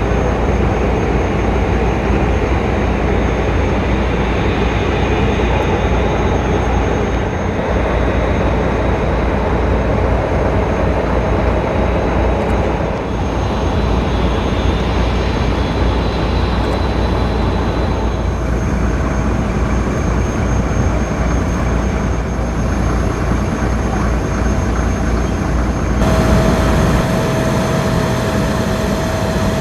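Airbus A380 jet engines at takeoff thrust: a loud, steady rumble with a faint high whine. The sound changes abruptly about 26 seconds in, the low rumble dropping and a steady mid-pitched tone coming up.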